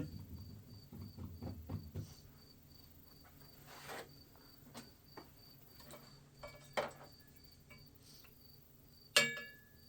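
A cricket chirping, a high pulsed chirp repeating a few times a second. Faint clicks and knocks from hands handling wires and parts, with a sharper clack about nine seconds in.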